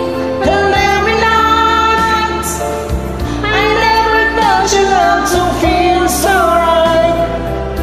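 Two men singing a pop love ballad as a karaoke duet over a backing track, holding long notes.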